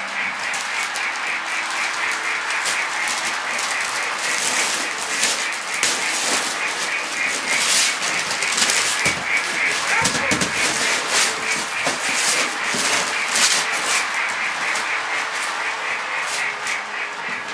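Gift wrapping paper being torn and crinkled in irregular rips as a large present is unwrapped, over a steady, fast-pulsing chirp that runs throughout.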